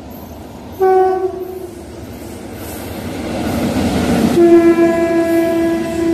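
Indian Railways electric locomotive sounding its horn as it passes: a short blast about a second in, then a long steady blast starting a little after four seconds. Under the horn, the train's rumble swells as the locomotive and its coaches go by close at speed.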